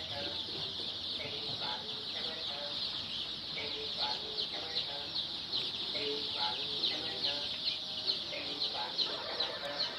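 A flock of chickens in a poultry house: many high peeping calls overlapping in a continuous chorus, with lower clucking calls breaking through every second or so.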